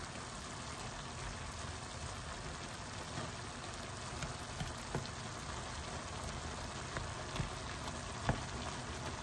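Chicken and diced vegetables sizzling and simmering in their own juices in a frying pan: a steady hiss with small scattered pops, and a couple of sharper clicks near the end.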